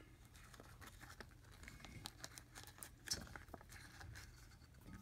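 Faint handling noise: fingers rubbing and crinkling a latex balloon held on a helium tank's nozzle, as scattered small clicks and rustles with one slightly louder knock about three seconds in.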